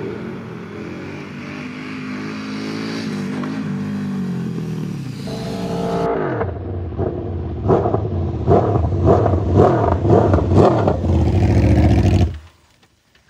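KTM 1290 Super Duke R's V-twin engine held on the throttle through a wheelie, its pitch wavering up and down. About six seconds in, a second sport motorcycle's engine comes in louder at high revs, pulsing rhythmically as it approaches, then cuts off abruptly near the end.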